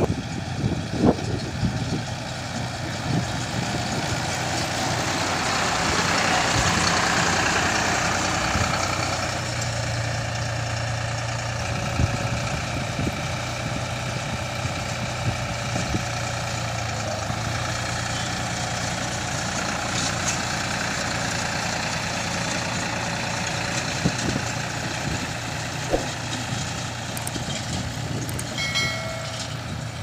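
Deutz-Fahr 4050E 50 hp tractor's diesel engine running steadily under load while it drives a small round straw baler, with short mechanical knocks from the working machine. The sound swells louder a few seconds in, then settles.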